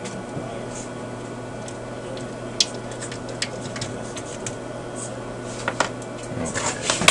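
Light clicks and taps of a metal tool and fingers working on an amplifier circuit board, over a steady low hum, with busier rattling and handling of the board near the end.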